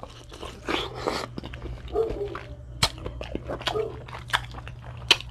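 A dog barking now and then, over close-miked eating sounds: sharp clicks and crunches of chewing and biting.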